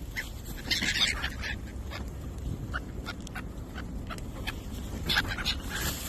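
Gulls calling in many short, sharp cries, a dense cluster about a second in and another near the end, over a steady low background rumble.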